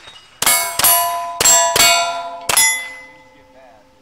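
Five rifle shots in quick succession, each answered by the clang of a steel target plate ringing as it is hit. The last plate rings on and slowly dies away.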